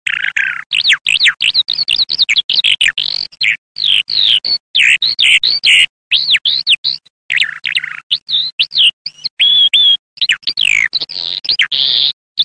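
Eurasian skylark song given from the ground: a fast, unbroken stream of varied chirps, trills and quick rising and falling whistles, with only a few short breaks.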